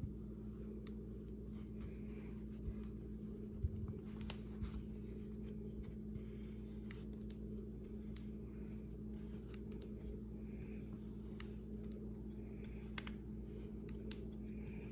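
Faint, scattered small clicks and a few soft knocks of pistol parts and tools being handled on a bench, over a steady low hum.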